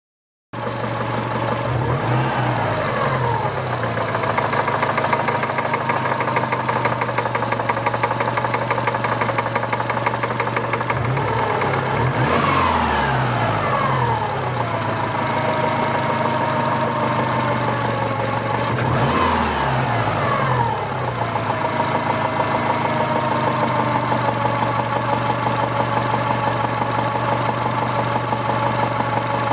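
Subaru EJ22 flat-four engine, hot, idling with a steady rhythmic knock, and revved up and back down three times. The owner asks whether the knock is rod knock.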